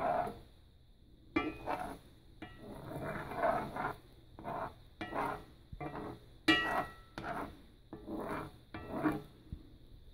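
Spatula scraping and pushing scrambled eggs across a cast iron skillet, a quick run of short strokes about two a second, with one longer scrape a few seconds in.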